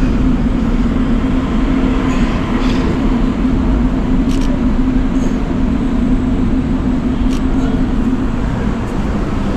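A large engine idling steadily close by: a constant low hum over a rumble of street noise, with a few faint clicks.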